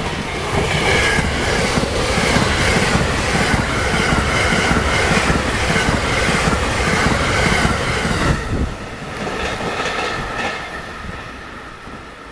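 Twelve-car 681-series and 683-series electric express train passing at high speed, its wheels clattering rapidly over the rail joints. The sound cuts off sharply about eight seconds in as the last car goes by, then fades away.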